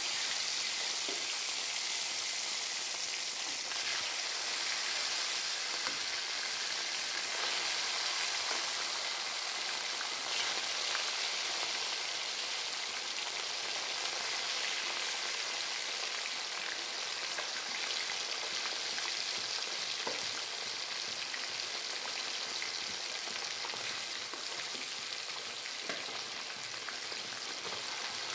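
Marinated rohu fish steaks sizzling as they shallow-fry in hot oil in a kadhai: a steady frying hiss, with a few light clicks of the spatula against the pan as pieces are added and moved.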